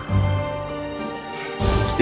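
Dramatic background score: sustained notes over a low pulsing bass, with a swell near the end as a man starts to speak.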